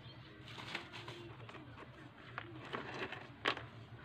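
Quiet handling of a plastic basin and a wooden stirring stick: scattered light taps and clicks, the loudest about three and a half seconds in, over a low steady hum.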